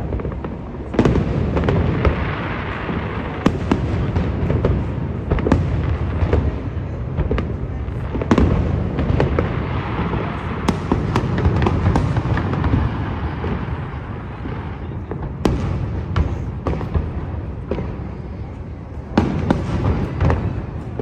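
Fireworks display: a dense, continuous run of booms and sharp bangs, many close together over a low rumble.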